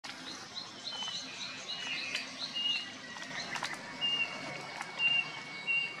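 Birds chirping: a quick run of short, evenly repeated chirps for the first few seconds, then a few brief whistled notes, with a handful of sharp clicks in between.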